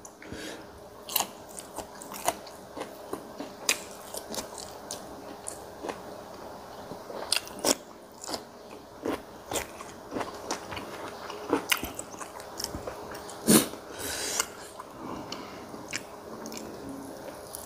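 Close-up chewing and crunching of a mouthful of fermented fish (som pla) eaten with raw chilli and garlic. Sharp crunchy bites come at an irregular pace, picked up crisply by a lapel microphone.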